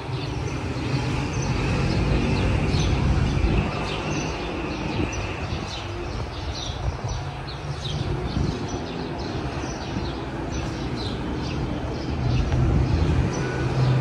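Small birds chirping in many quick, high, short notes over a steady low rumble.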